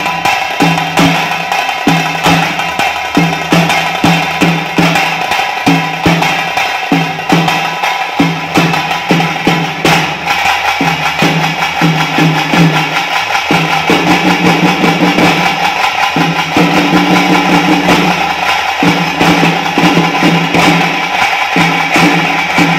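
Drum-heavy music with fast, dense drum strokes over a steady pitched backing, the accompaniment to a Huli Vesha tiger dance.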